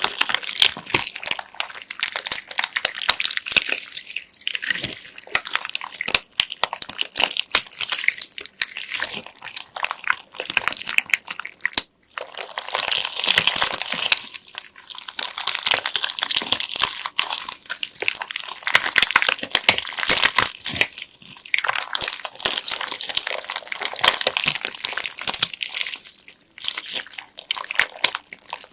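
Hands squeezing, stretching and folding slime packed with small plastic beads: a dense, irregular run of sticky clicks and crackles, with a few brief pauses.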